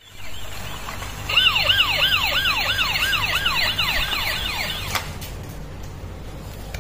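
Toy police car's electronic siren: a fast yelping tone rising and falling about two to three times a second, starting a little over a second in and cutting off suddenly about five seconds in.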